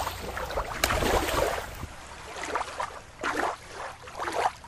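River water sloshing and splashing in irregular surges as toys are moved about in it, with one sharp click just under a second in.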